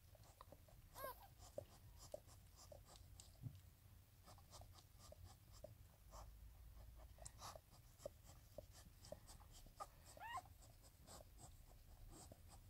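Faint wet clicks of a springer spaniel licking her newborn puppy, with the puppy's thin squeak about a second in and again near the end.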